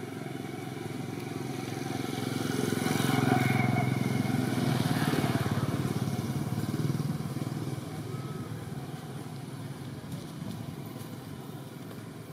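A passing motor vehicle's engine: a hum that swells over a couple of seconds, holds loudest for a few seconds, then fades away.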